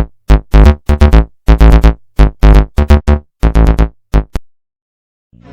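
Synthesizer music: loud chords struck in a quick, uneven rhythm, each dying away, that stop about four seconds in; after a short gap a softer piece of music starts right at the end.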